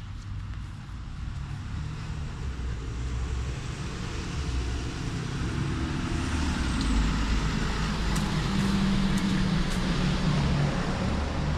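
A motor vehicle running, with a low engine hum and road noise that grow louder over the first several seconds, then hold steady.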